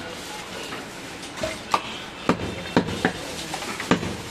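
A butcher's large knife chopping mutton on a wooden block: a run of sharp chops about two a second, starting after a quieter first second and a half.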